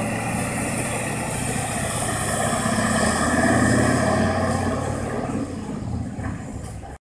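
Tatra 815 truck's air-cooled diesel engine pulling away and accelerating, its note rising and growing loudest about three to four seconds in, then fading as the truck drives off. The sound cuts off suddenly near the end.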